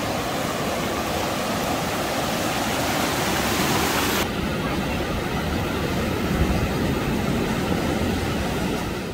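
Steady rushing noise with no distinct events, of the kind surf or wind on the microphone makes; its character changes abruptly about four seconds in, as at a cut.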